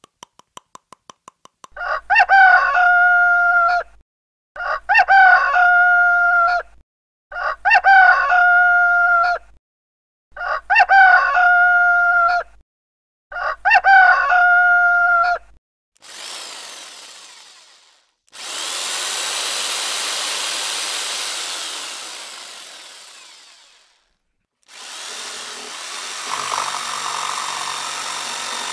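Brief rapid chattering of teeth, then a rooster crowing five times, each crow about two seconds long with short gaps between. Two stretches of rushing hiss follow. Near the end an electric jigsaw starts running steadily.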